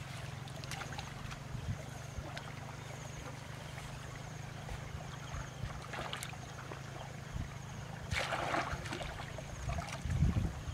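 Shallow muddy water sloshing and trickling as hands grope among grass roots under a ditch bank, with a louder splash about eight seconds in, over a steady low hum.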